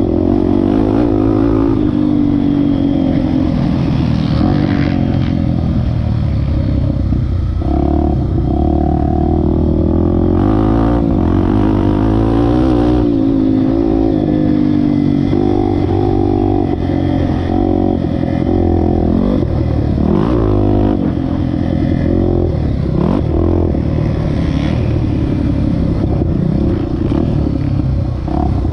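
Honda XR Tornado 250 motorcycle's single-cylinder four-stroke engine being ridden hard, its pitch repeatedly rising and falling as the throttle opens and closes, over a heavy low rumble.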